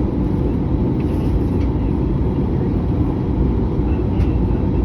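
Steady low rumble of an Airbus A319's jet engines and rushing air, heard inside the passenger cabin during the descent for landing.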